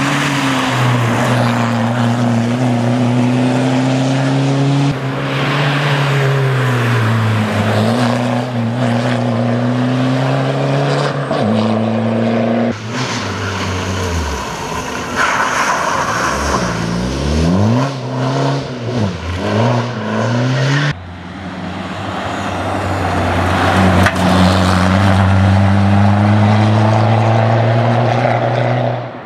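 Škoda Fabia rally car driven hard on a stage, its engine note rising and falling through gear changes as it approaches and passes. Midway the pitch drops and climbs sharply several times in quick succession, and the sound changes abruptly twice where the shots change.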